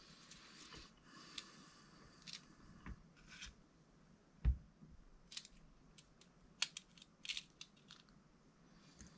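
Hands working on an RC car's central differential: scattered small clicks, taps and rustles of parts and tools. A dull knock about four and a half seconds in is the loudest sound, followed by a run of sharp little clicks.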